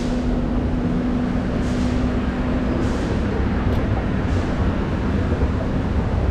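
Escalator and moving-walkway machinery running: a steady low rumble, with a humming tone that fades about halfway through.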